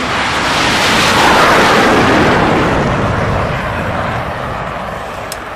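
Fighter jet passing low overhead: a roar that swells to a peak about a second and a half in, then slowly fades away.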